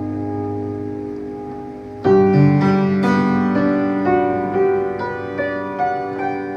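Solo piano: a held chord fades for about two seconds, then a new chord is struck and a melody of single notes, about two a second, rings out over it.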